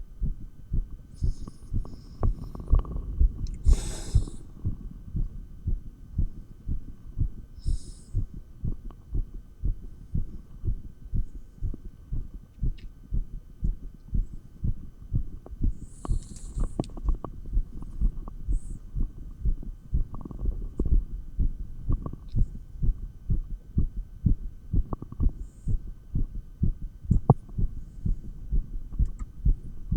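Human heartbeat heard through a stethoscope during dumbbell exercise: a steady train of quick, regular lub-dub beats, the pace raised by the exertion. A few brief scratchy rustles come over it, loudest about four seconds in, again near eight and sixteen seconds.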